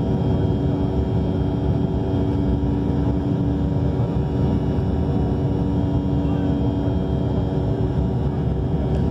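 Airliner engines running steadily during takeoff, heard inside the passenger cabin as a constant loud drone with a steady hum.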